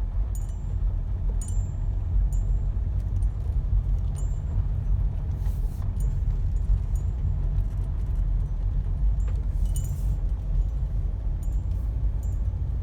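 Steady low road and drivetrain rumble of a 2003 Toyota Corolla, heard inside the cabin on a braking test run, with light metallic clinks in the first few seconds and two brief hissing swells near the middle and toward the end. This is the run where the owner is listening for a rubbery noise under braking that new front brakes and rotors have not cured.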